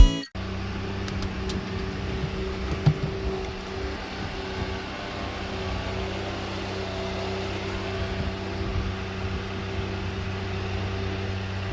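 Steady drone of an idling truck engine, most likely the truck-mounted aerial lift's engine running, with a few faint knocks.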